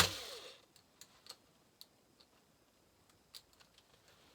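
A loud noisy sound cutting off at the very start, then scattered light clicks and taps of small chainsaw parts and tools being handled on the bench, a few at irregular intervals.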